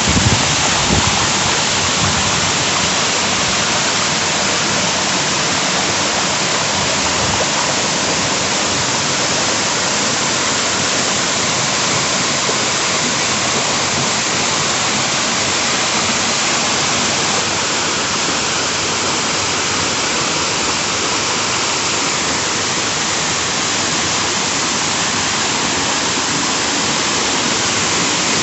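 Waterfall: water falling and splashing, a loud, steady rush.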